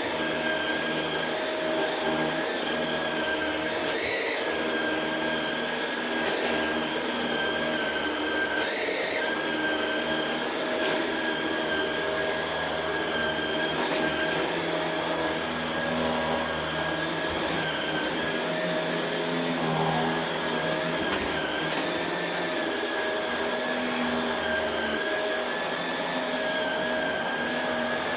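Shark Rotator Pro Lift-Away NV500 upright vacuum cleaner running on carpet: a steady motor whine over a constant rushing noise.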